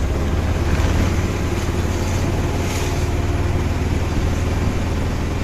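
Auto-rickshaw running steadily during a ride, heard from inside the cab: a constant low engine drone with road noise.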